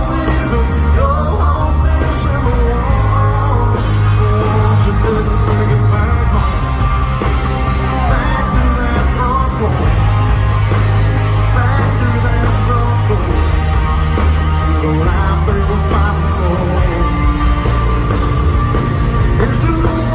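A live country band playing a song in a large arena, with drums, bass and electric guitars and singing over them.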